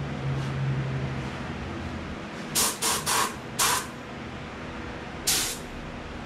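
Compressed-air paint spray gun hissing in short trigger pulls as paint is laid on: four quick blasts a little over two and a half seconds in, then one more about five seconds in, over a steady hum.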